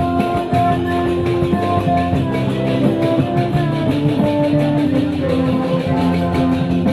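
Loud music: a melody of held notes that change every second or so, over a steady beat.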